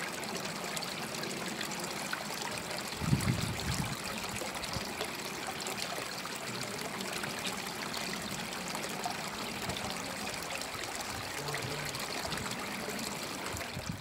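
Small garden waterfall spilling over rocks into a raised pond, a steady trickling and splashing of water, with a brief low thump about three seconds in.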